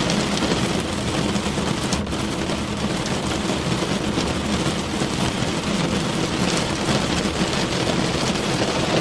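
Steady rain falling on a car's body, a dense, unbroken patter of many small drop impacts.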